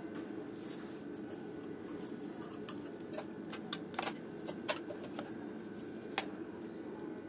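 Wooden spatula and knife knocking and scraping on a flat tawa, with a few sharp clicks between about three and six seconds in, over a steady low hum.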